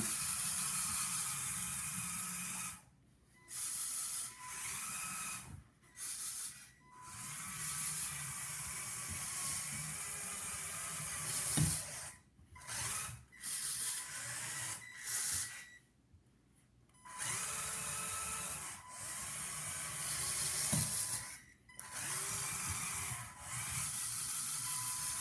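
Lego Power Functions L motor driving the RC car through its 5:3 plastic gear train, whining in repeated runs of a few seconds that stop and start abruptly as the car is driven back and forth.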